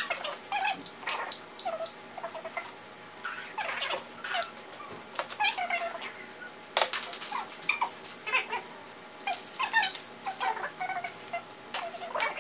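Repeated short, high whimpering calls from a small animal, each sliding up or down in pitch, mixed with the crackle and rustle of plastic ribbon being handled.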